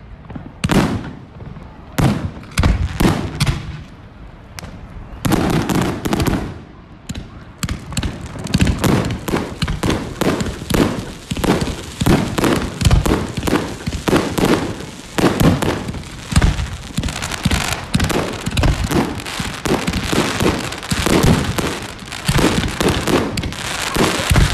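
Fireworks display: aerial shells bursting with sharp bangs, a few spaced apart at first, then from about eight seconds in a dense, continuous barrage of bangs and crackling.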